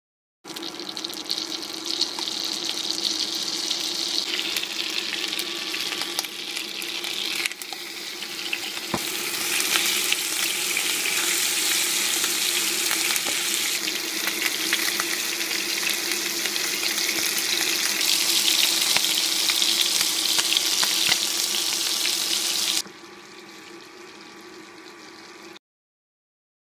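Chicken pieces sizzling and crackling as they fry in butter and olive oil in a nonstick pan, with small clicks throughout and a steady low hum underneath. Near the end the sizzle drops to a quieter hiss, then cuts off.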